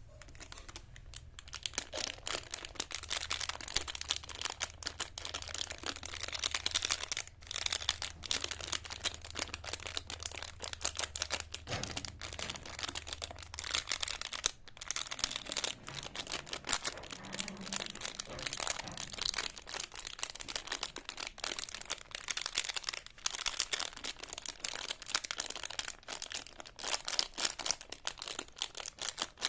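Close-up crinkling and crackling of a jumbo lollipop's plastic wrapper being handled: a dense, continuous run of small crackles. A faint low hum sits underneath and stops about halfway through.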